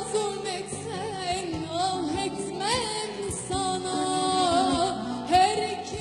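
Turkish music ensemble playing a passage of the song, with violin and kanun carrying a wavering, ornamented melody over sustained accompaniment.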